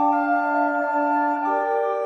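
Recorder consort playing several parts in harmony on held notes, the chord changing about three quarters of the way through.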